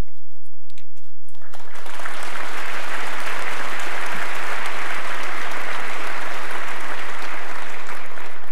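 Theatre audience applauding: a few scattered claps at first, swelling into full applause about a second and a half in, then stopping near the end.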